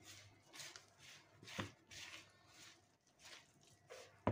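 A hand mixing flour into a wet dough mixture in a bowl, starting to knead: soft rustling, scraping strokes about twice a second, with a sharper knock at the end.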